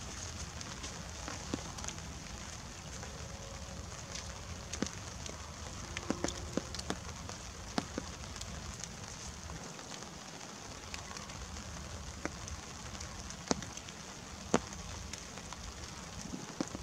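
Light rain and dripping water: scattered, irregular ticks of drops over a steady hiss, with a low rumble underneath.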